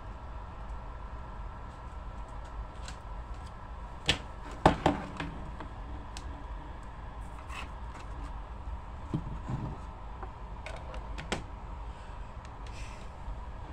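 Scattered clicks and knocks over a steady electrical hum, with a cluster of sharp knocks about four to five seconds in and a few lighter ones later.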